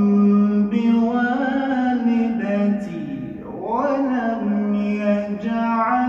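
A male reciter chanting the Qur'an in a slow, melodic style, holding long, ornamented notes. About three seconds in, his voice dips in pitch and then climbs back up.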